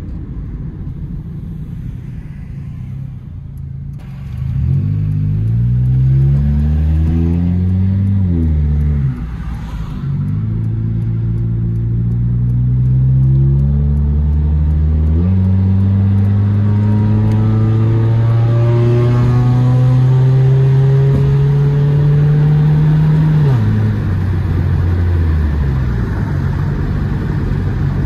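Turbocharged Nissan Sentra SE-R four-cylinder engine, heard from inside the cabin, pulling away from a stop. After a few seconds of low rumble the engine pitch climbs in rising sweeps with a break between them, holds a long climb, then falls away near the end as the car slows.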